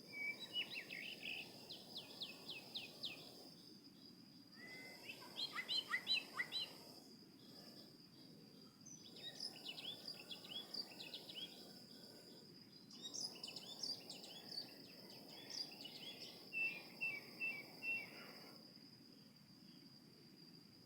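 A songbird singing in four bursts of rapid, sharp high notes, with pauses of a second or two between them, over a steady high-pitched whine.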